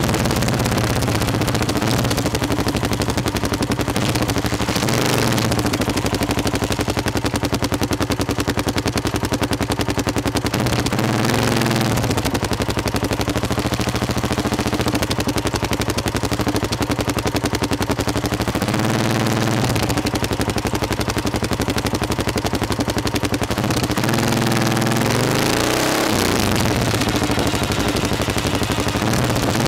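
Motorcycle engine running steadily under way, recorded from a camera on the bike, with wind rush. Its pitch dips and climbs again three times, about a third, two thirds and five sixths of the way through.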